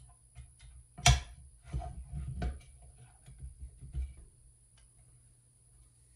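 Knocks and clatter of a spoked dirt-bike wheel, its spokes not yet tightened, being handled and set into a wheel-truing stand: one sharp knock about a second in, then a short clatter and a few lighter knocks.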